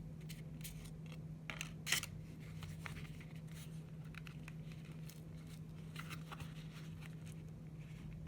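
Light rustling and scraping of a new wallet being handled and turned over, with a sharper crackle about two seconds in. A steady low hum runs underneath.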